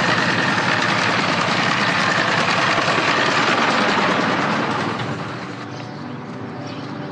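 A motor vehicle's engine running, loud and steady with a fast rattling pulse, then dropping away about five seconds in.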